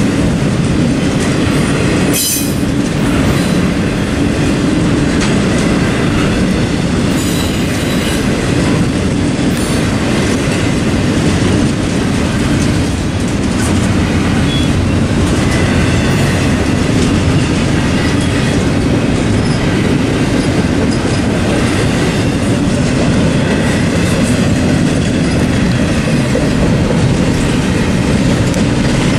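Double-stack intermodal freight cars rolling steadily past: a continuous rumble of wheels on rail with clicking over the joints and a faint high squeal at times. A single sharp clack about two seconds in.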